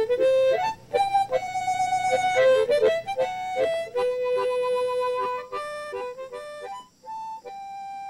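Outro music: a single-line melody of held and short notes, growing quieter in the second half.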